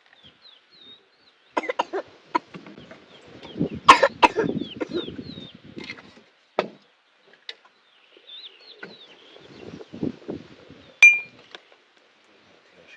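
Chickens clucking, mixed with a few knocks and clinks, one of which rings briefly near the end. Faint short high chirps run underneath.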